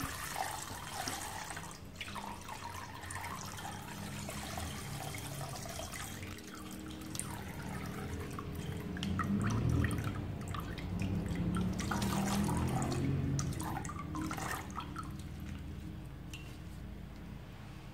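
Milk pouring in a thin stream from a plastic pouch into a stainless steel saucepan, trickling and splashing onto the milk already in the pan. Now and then there are short crackles as the plastic pouch is squeezed to empty it.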